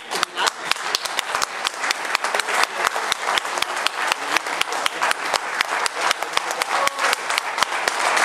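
Audience applauding, with many sharp claps standing out, growing louder and denser near the end.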